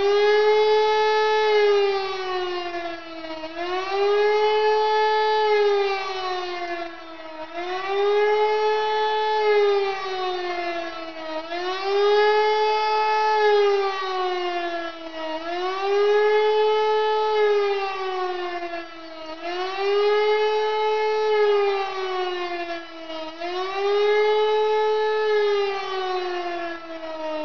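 E57 electro-mechanical motor siren sounding the 'Warnung' (warning) signal, a wailing tone that rises, holds briefly and falls again about every four seconds.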